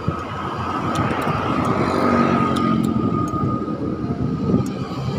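Road traffic of cars and motorcycles heard from a moving bicycle, with wind rushing on the microphone; a vehicle's engine grows louder around the middle.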